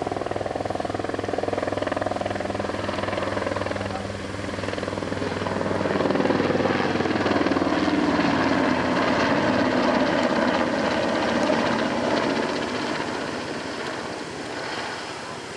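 NHIndustries NH90 twin-engine military helicopter flying past: steady rotor chop with engine noise, growing louder about five seconds in as it passes closest, its pitch dropping as it goes by, then fading as it flies away.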